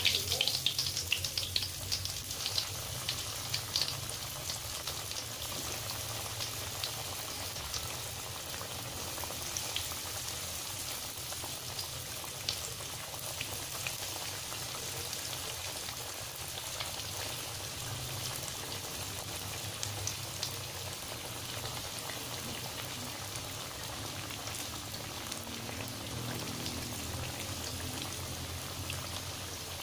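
Breaded risoles deep-frying in hot oil in a wok: a loud sizzle as a freshly dropped piece hits the oil in the first second or so, settling into a steady crackling, bubbling sizzle.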